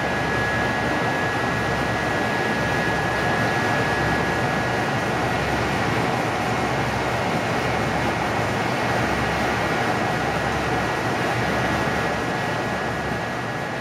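Belt-driven General Electric generator and water-turbine pulley running at full capacity. It gives a loud, steady machine noise with a thin, constant high whine over it.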